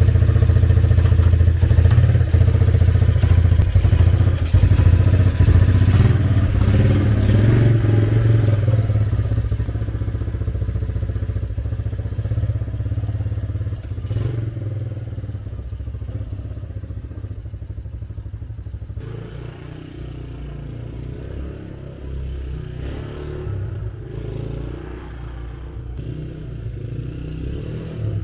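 Rebuilt Kawasaki Bayou ATV's single-cylinder four-stroke engine running and revving as the four-wheeler pulls away, the engine sound growing slowly fainter as it rides off.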